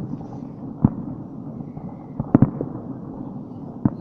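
Distant New Year fireworks display bursting: a sharp boom about a second in, a quick run of three around the middle, and another just before the end, over a steady low rumble of further bursts.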